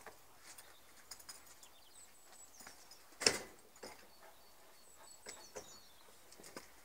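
Two Northern Inuit-type dogs play-fighting on paving stones: scattered scuffs and clicks of paws and bodies grappling, with one sudden louder burst about three seconds in.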